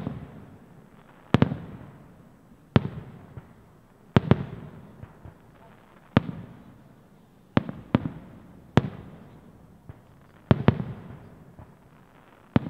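Aerial firework shells bursting, about ten sharp bangs a second or so apart, some in quick pairs, each trailing off in an echo.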